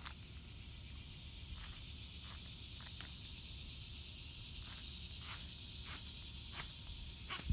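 Steady high insect chorus with scattered light clicks and ticks over a low rumble.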